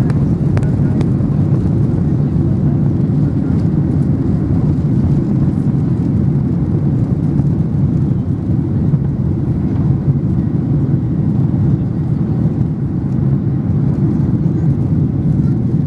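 Boeing 737-800 cabin noise during the takeoff roll and liftoff: its CFM56-7B engines at takeoff thrust give a steady, loud low rumble.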